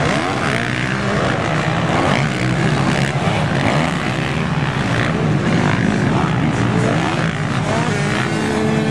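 Several motocross bike engines running together on a race track, each revving up and down so that their pitches rise, fall and cross over one another.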